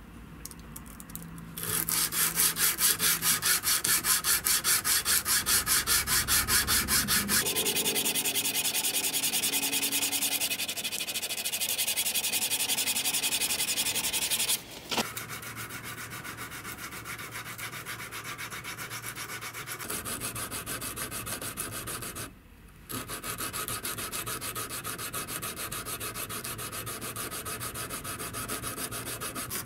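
A small abrasive block rubbed by hand in quick, even back-and-forth strokes along a steel knife blade, hand-sanding the blade's flat. The strokes start a couple of seconds in, grow quieter about halfway, and stop briefly twice, about halfway through and again about three-quarters through.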